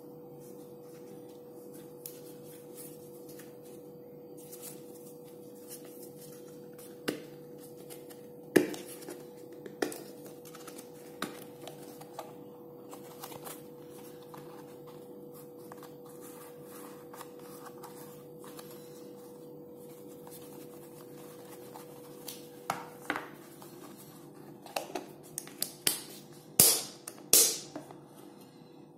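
Small hard plastic sealed storage case being handled, with scattered plastic clicks and knocks as its latches and lid are worked. A couple of loud snaps near the end as the lid is pressed shut and latched. A faint steady hum runs underneath.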